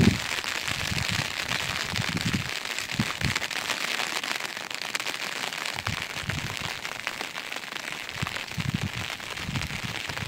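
Steady rain patter, a dense hiss of fine drop ticks, with low muffled sounds coming and going underneath.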